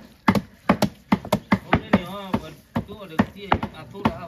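Raw pork being minced with a knife on a chopping block: sharp, even chops at about three to four a second.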